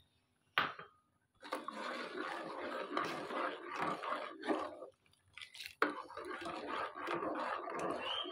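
Metal spoon stirring milk and custard in a steel pot, scraping the pot in two spells of a few seconds, with a sharp metal clink about half a second in and another about two-thirds of the way through.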